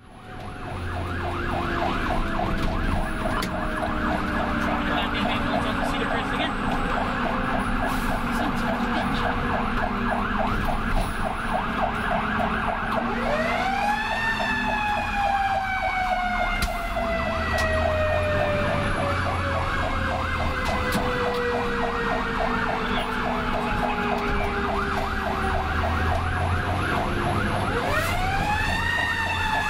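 Fire engine sirens heard from inside the cab while responding: a fast-pulsing electronic siren runs throughout, and a mechanical siren is wound up twice, about halfway through and near the end, each time rising quickly and then slowly winding down. The truck's engine rumbles underneath.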